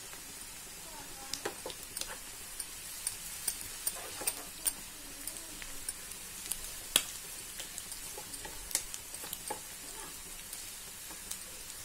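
Sliced onions sizzling in hot oil in a frying pan while a wooden spatula stirs them, being fried toward golden. A steady hiss with frequent sharp crackles and clicks, the sharpest about seven seconds in.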